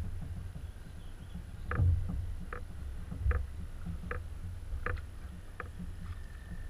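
A canoe being paddled: six short, evenly spaced paddle strokes, about one every three-quarters of a second, over a steady low rumble.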